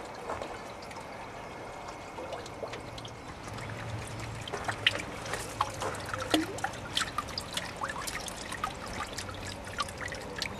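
Water trickling and splashing in a homemade garden water-wheel feature, a steady trickle with many small drips and splashes from about four seconds in.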